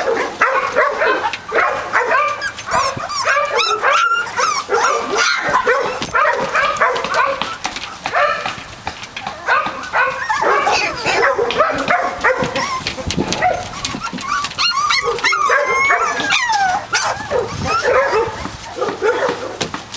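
A litter of three-week-old Catahoula leopard dog puppies crying, a dense chorus of many short, high cries overlapping without a break.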